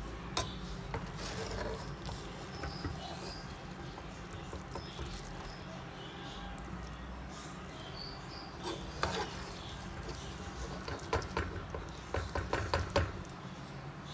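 Light clicks and taps of kitchen utensils and dishes being handled while cooking, with a quick run of them about nine seconds in and a busier cluster near the end, over a steady low hum.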